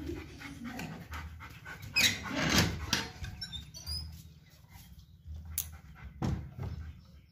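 German Shepherd dog panting, with a loud burst of noise about two seconds in and a few sharp clicks near the end.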